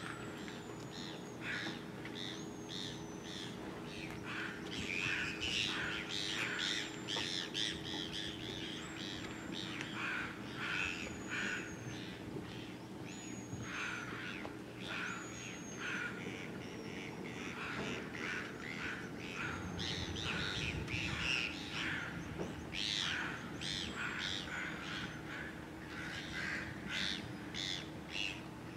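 Birds calling around a harbour: repeated harsh, caw-like calls throughout, with a thin high descending whistle every second or two, over a steady low hum.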